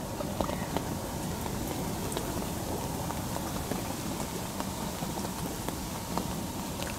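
Wind and rain: a steady rumble of wind buffeting the microphone, with scattered sharp ticks of raindrops.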